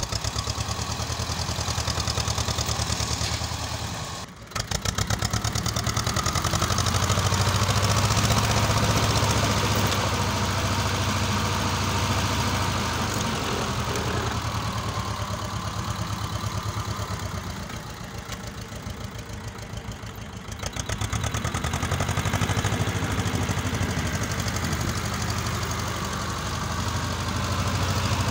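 Vladimirets T-25 tractor's two-cylinder air-cooled diesel running close by, with a steady rapid chugging. The sound drops out sharply for a moment about four seconds in and runs softer for a couple of seconds near the end.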